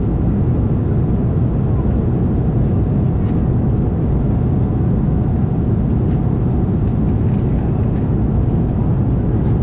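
Steady cabin noise of an Embraer E190 airliner in flight: an even, low noise of airflow and engines heard from a passenger seat.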